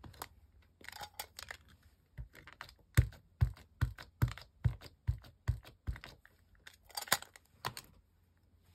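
Cling rubber stamps on a clear acrylic block being handled on a craft cutting mat: light rustling and scraping, then a run of about eight quick taps, two or three a second, and more scraping near the end.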